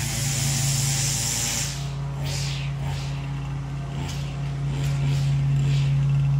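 Small petrol engine of lawn equipment running at a steady speed, a constant hum. A hiss over it drops away about two seconds in.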